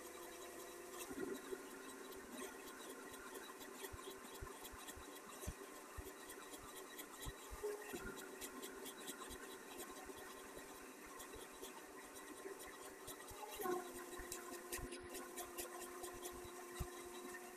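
A threading die in a hand-turned T-handle die stock cuts a thread onto a bolt. The sound is faint scratching with many small clicks, over a steady hum.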